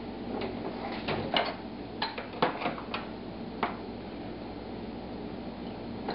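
Kitchen utensils clinking and knocking in a drawer as someone rummages through it for a whisk. There are a handful of sharp separate clinks over the first three to four seconds, then only a faint steady hum.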